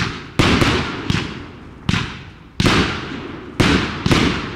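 Aerial fireworks going off: about seven sharp bangs at uneven intervals, each trailing off in a long echo.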